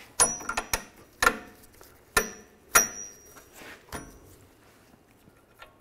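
About six sharp metallic clinks at irregular intervals, some with a brief high ring. This is metal suspension hardware knocking together as a nut is put on by hand.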